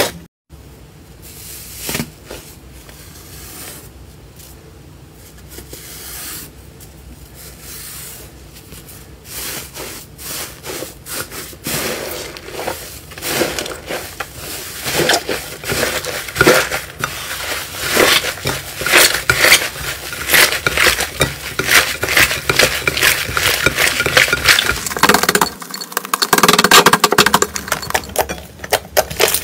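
Slime being squeezed and pressed by hand, with popping and crackling clicks. They are sparse and quiet at first, then come thick and louder from about ten seconds in.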